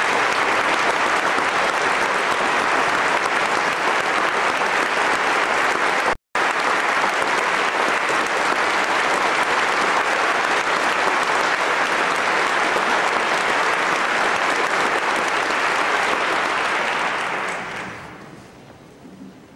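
Concert-hall audience applauding steadily for the orchestra and conductor. The sound drops out for an instant about six seconds in, and the applause dies away near the end.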